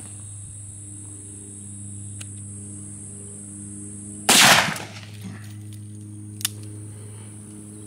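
A single shot from a large-calibre magnum revolver about four seconds in: a sharp blast with a brief fading tail, followed about two seconds later by a faint sharp click. A steady low hum runs underneath.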